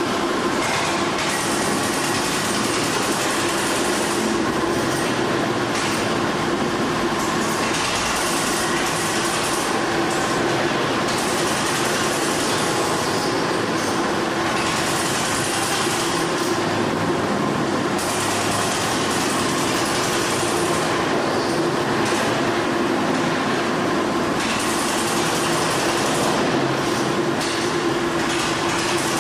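Nimbus Junior 2 motorised dumper's engine running steadily at a constant speed.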